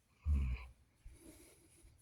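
A dog gives one short, low vocal sound, such as a grumble or woof, about a quarter of a second in, followed by fainter, quieter sounds.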